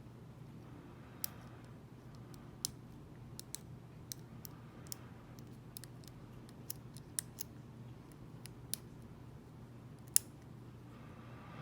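Small sharp metallic clicks at irregular intervals from a lock pick and tension wrench working the pins of a Mako 427 lock, the loudest about ten seconds in.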